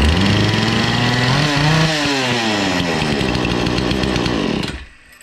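Remington RM4620 two-stroke chainsaw, bar and chain off, running on the bench. It revs up and back down once about a second and a half in, then cuts off shortly before the end. It revs without bogging, having 'ran like a champ' after its clean-out.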